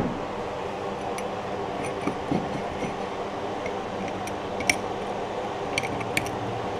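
Pliers clicking and tapping lightly against the rim of a thick glass champagne bottle as they take hold of the nearly cracked-off ring to snap it free, a few small sharp clicks with the clearest about two-thirds of the way in. A steady low hum runs underneath.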